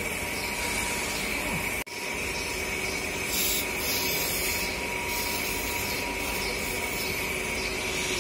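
Aerosol cleaner sprayed in short hissing bursts onto a starter motor's carbon-brush holder to clear rust from stuck brushes, with one burst about three and a half seconds in and another near the end, over a steady background hum.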